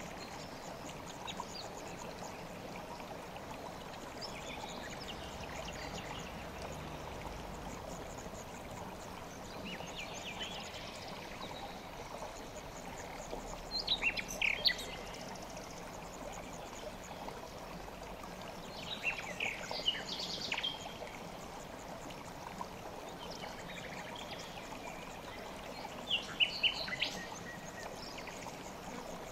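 River water flowing with a steady rush, with short bursts of bird chirping about 14, 20 and 27 seconds in.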